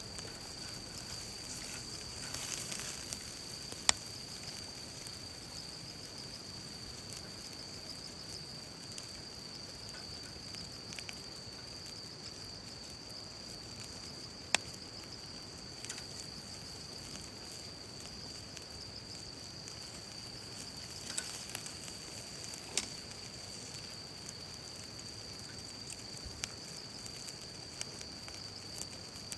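Fire burning in a camp fire pit, a steady faint hiss broken by a few sharp crackling pops, the loudest about 4 and 14 seconds in and a cluster near the 21–23 second mark. A steady high-pitched insect drone runs underneath.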